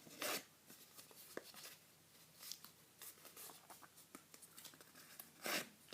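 A sheet of paper being folded and creased by hand: a brief rustle about a quarter second in and another near the end, with faint crinkles and ticks between.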